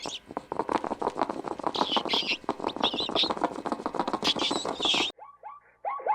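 Small birds chirping in short high bursts over rapid clicking and pattering. About five seconds in, the sound cuts to a different animal's short, falling calls, repeated quickly.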